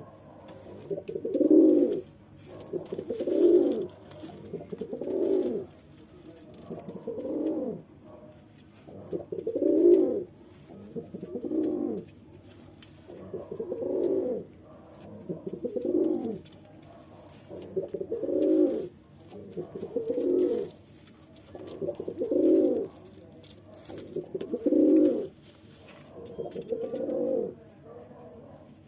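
Male domestic pigeon cooing in courtship of a female, a low coo repeated about every two seconds, over a dozen times.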